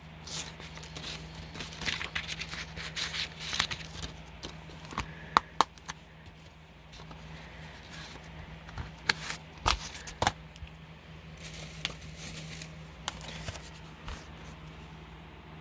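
Plastic Blu-ray cases being handled: rustling and scraping with a series of sharp clicks and taps, two close together about halfway through and a few more later.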